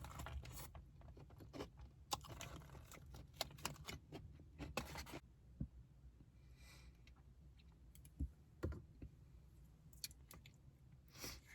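Close-up crunching and chewing of a crispy fried chicken sandwich, a dense run of crisp crackles for about five seconds, then a few sparse soft knocks.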